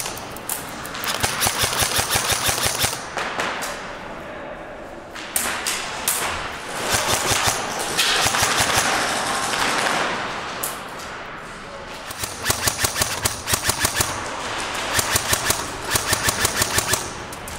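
Airsoft guns firing rapid full-auto bursts of sharp clicks, several bursts with pauses between them.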